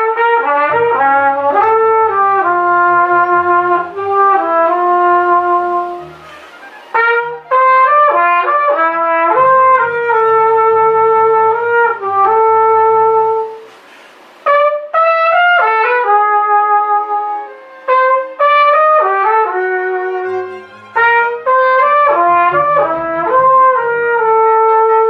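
Flugelhorn playing a slow, jazz-style melody of held, smoothly joined notes in phrases with short breaks between, its tone deep and thick. Low accompanying notes sound underneath.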